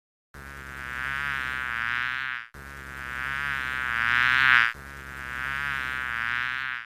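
A flying insect buzzing, heard as three back-to-back stretches of about two seconds each. Each stretch grows louder as if the insect is coming closer, and the pitch wavers slightly.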